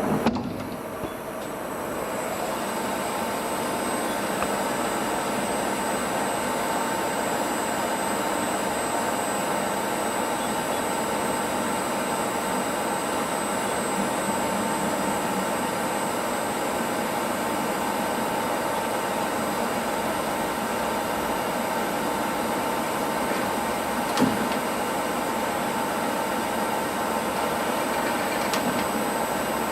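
Pinacho Cobra metal lathe running steadily with a constant whine and a high steady tone. It opens with a sharp click and settles over the first couple of seconds, and a single short knock comes about 24 seconds in.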